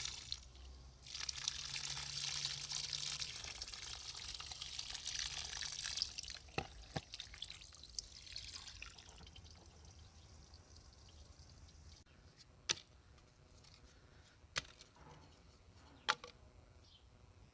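Water pouring from a garden hose into a bowl of raw chicken hearts, with a hand swishing them as they are rinsed. The flow is loudest for the first six seconds and then fades, and a few sharp knocks come near the end.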